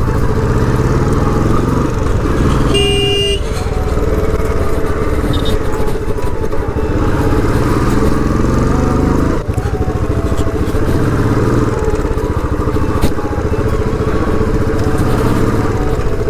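Motorcycle engine running while riding, its pitch climbing and dropping back as it goes through the gears. A horn sounds briefly about three seconds in.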